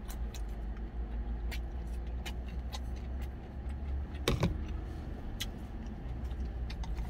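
Steady low hum of an idling truck engine heard inside the cab, with light clicks of chopsticks against a plastic lunch container and one louder knock about four seconds in.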